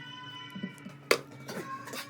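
Background music with held tones, broken by one sharp click about a second in, the loudest sound, and a brief scraping noise near the end.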